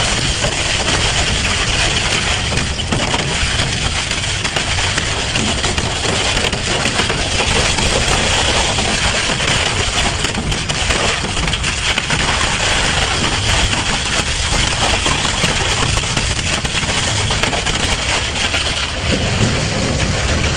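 Double-shaft shredder running under load, its toothed cutter discs chewing up electronic scrap (circuit strips, plastic and a sheet-metal frame) in a loud, continuous crunching and crackling.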